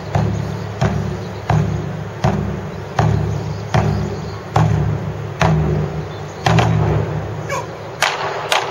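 Large barrel-shaped taiko drum on a tall stand, struck with wooden bachi in a slow, steady beat of about one and a half strokes a second, each stroke a deep boom that dies away before the next.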